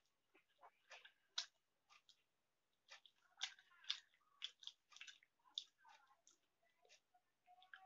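Faint, close eating sounds of Maggi instant noodles with omelette: noodles slurped in and chewed, in a string of short, irregular wet clicks and smacks.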